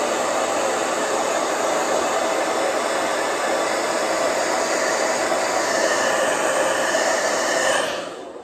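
Handheld blow dryer running steadily on a layer of wig glue to dry it, then switched off and winding down about eight seconds in.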